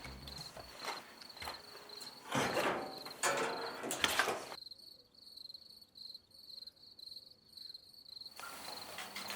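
Crickets chirping steadily in a fast, even pulsing trill. In the first half, a few louder rustling, crunching noises break in.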